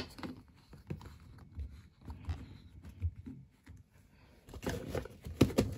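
Handling noise of plastic detergent bottles at a washing machine's dispenser drawer: scattered light clicks and knocks, with a denser run of them about five seconds in.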